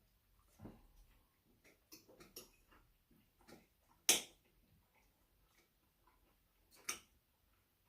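Scattered small clicks and taps in a quiet room, the loudest a sharp click about four seconds in and another near seven seconds.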